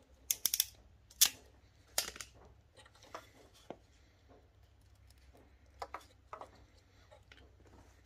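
Sharp irregular clicks and snips from hand tools working on automotive wiring: a crimping tool closing butt crimp connectors and wires being cut and stripped. The clicks come in a quick cluster in the first second or so, then more sparsely, with a close pair about six seconds in.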